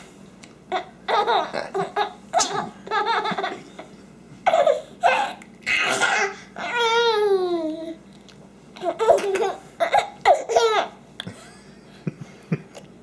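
Laughter in repeated bursts, a baby's among it, with one long falling squeal about seven seconds in.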